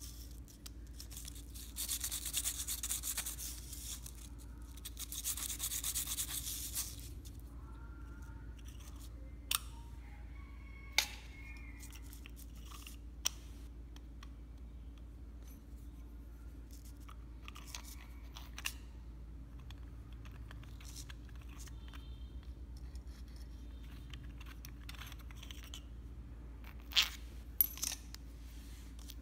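A hand tool scraping on a section of old fishing rod in two stretches of about two seconds each, then a few scattered clicks and knocks as the pieces are handled, over a steady low hum.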